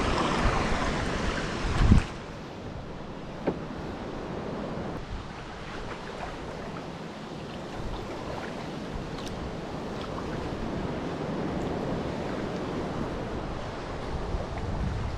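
Sea water washing around a kayak, with wind buffeting the microphone. The wash and wind are loudest at first, with a sharp peak just before two seconds in and a short knock a little later, then settle into a steady, quieter hiss of water.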